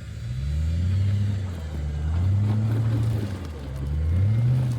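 Off-road Jeep engine revved three times, each time rising in pitch and then holding before easing off.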